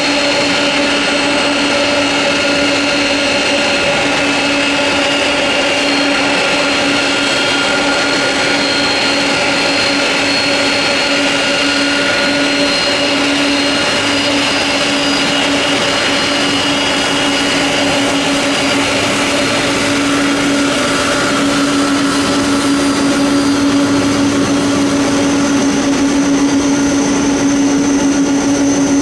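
Boeing 747-400 freighter's four jet engines running at taxi power as it rolls past close by: a steady whine over a low hum. It grows a little louder near the end as the engines come level.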